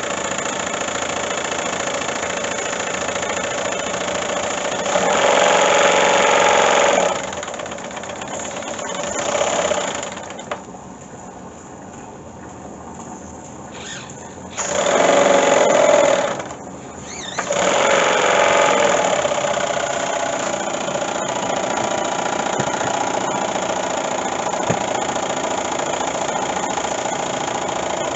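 Miniature oscillating two-cylinder steam engine (horizontally opposed, single-acting, 5 cc) running fast on steam from a propane-fired boiler: a steady, dense rattle of fast exhaust beats with steam hissing. It surges louder three times and falls much quieter for a few seconds near the middle.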